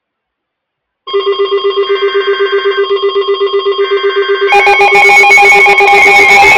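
Weather alert radios going off for a severe thunderstorm warning: a rapid pulsing electronic alarm starts about a second in, with a higher tone switching on and off about once a second. About four and a half seconds in, a second, louder alarm with different tones and sharp clicks joins it.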